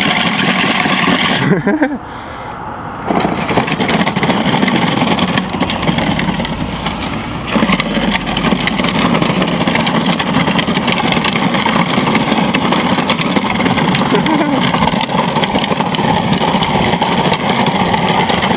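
Kids' ride-on toy truck converted to radio control, with a brushless motor driving it: a steady loud rolling rumble and drivetrain noise as it runs over asphalt and gravel. The noise dips briefly about two seconds in, then picks up again.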